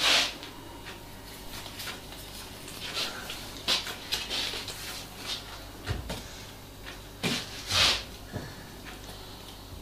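Quiet room with a few short, scattered rustles and a light bump: handling noise.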